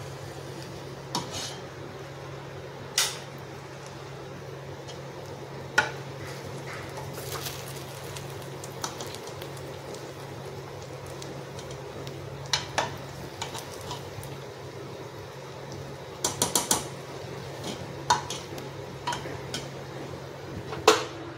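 Steel ladle clinking and scraping against an aluminium pot while mixing cooked biryani rice. The clinks are scattered and sharp, with a quick run of several about two-thirds of the way through, over a steady low hum.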